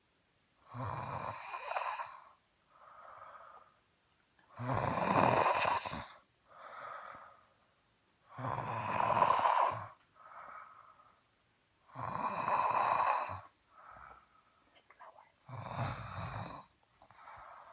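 A person snoring loudly, five heavy snores in a slow, even rhythm, each followed by a softer breath out.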